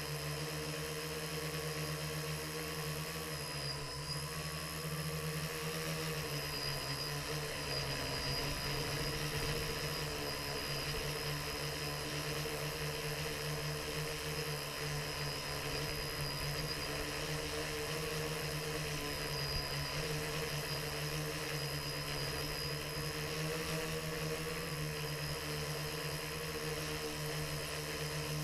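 Electric motors and propellers of a small multirotor drone whirring steadily, as picked up by its onboard camera, the pitch shifting slightly with throttle changes.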